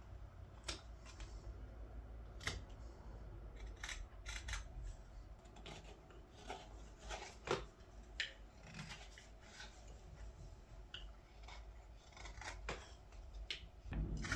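Carving knife slicing thin shavings from a green-wood ladle: a series of short, crisp cuts, irregularly spaced at roughly one a second.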